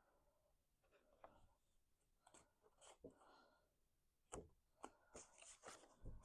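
Faint rustling and light tapping of cardstock pieces being handled and fitted together, with a few sharper clicks in the second half.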